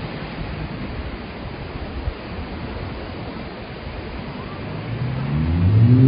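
Steady rushing noise of wind and surf. About five seconds in, a motor vehicle's engine rises in pitch as it accelerates and grows louder.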